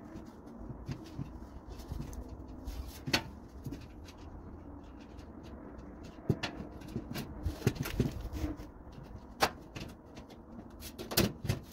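Irregular clicks and knocks of parts and tools being handled while a gas grill is assembled, with a cluster of sharper knocks near the end.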